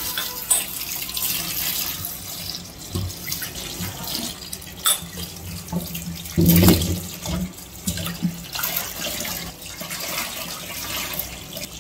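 Tap water running onto a bowl of lemons in a sink, splashing steadily as the lemons are washed by hand, with a louder spell of splashing about six and a half seconds in.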